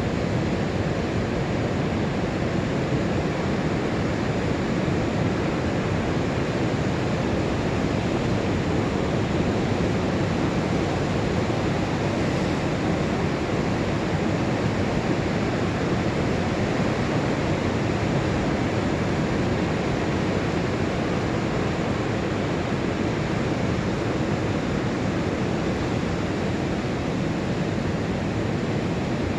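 Ocean surf breaking and washing up the beach on an incoming tide: a steady, unbroken rush of waves.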